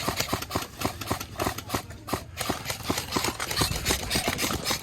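Footsteps: a quick, slightly uneven run of crunching steps, several a second.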